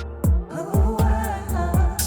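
Hip-hop beat playing: a sampled melodic loop with kick drums that drop in pitch, hitting several times, and crisp hi-hats on top.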